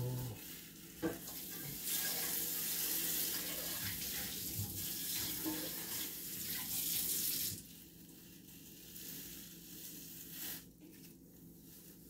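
Running water, a steady hiss that starts about two seconds in and stops suddenly about five and a half seconds later.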